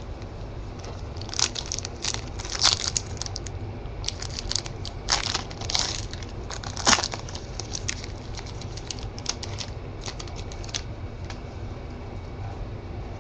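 Trading card packs and cards being handled: crinkling and crackling of pack wrappers, coming in clusters with a few sharper snaps, from about a second in until near the end, over a steady low hum.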